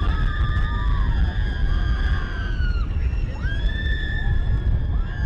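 Riders on the Slinky Dog Dash roller coaster screaming in long, high, held cries over a steady rumble of wind and the train running at speed. Quicker rising and falling cries come near the end.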